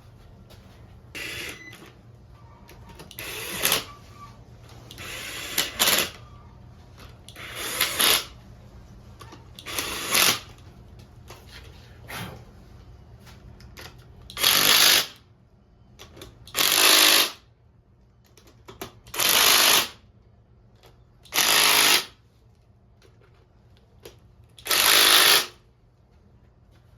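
A power tool run in about nine short bursts. The first four swell up and cut off sharply; the last five are louder, each held steady for about a second at even spacing.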